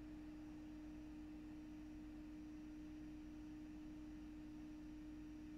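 Faint steady background hum carrying one constant mid-low tone, unchanging throughout, with no other events.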